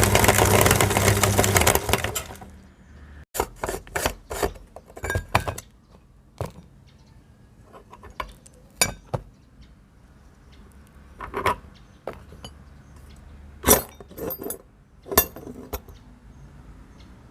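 Electric meat grinder motor running with a steady hum, switching off about two seconds in. Then scattered sharp clicks and clinks of hard objects being handled.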